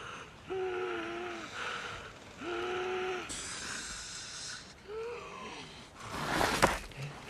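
A man groaning in pain and strain: three short, wavering moans, then a loud, harsh, breathy gasp near the end.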